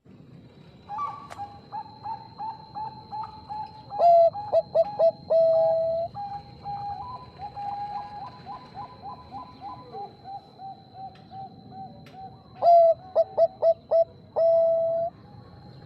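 Zebra doves (Bangkok perkutut) singing. Soft repeated coos come about two a second, broken twice by louder bursts of rapid staccato coos, each ending in a longer drawn-out note.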